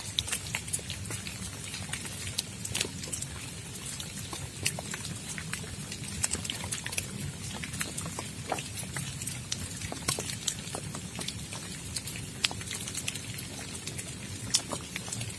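Steady rain, with many scattered drops striking close by as sharp, irregular ticks over a low, even hiss.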